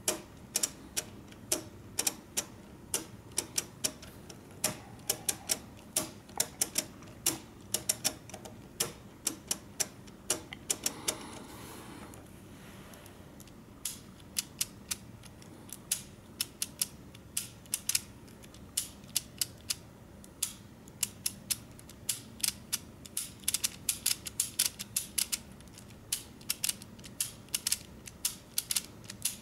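LEGO Technic 90° stepper mechanism clicking as its input axle is turned by hand: sharp plastic clicks in quick irregular runs, with a pause about halfway through.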